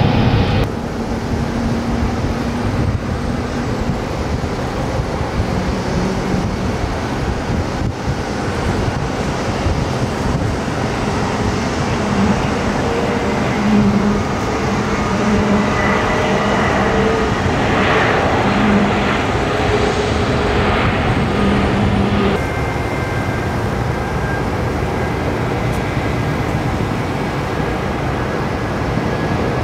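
Jet airliner engines on and over the runway, heard from across the airfield: a steady rumble with a faint whine. The sound shifts abruptly twice.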